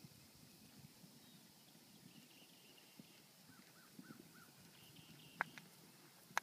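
Faint, distant hoofbeats of a cantering polo pony on turf, with a few short high bird chirps midway. Two sharp knocks come near the end, the louder of them right at the close.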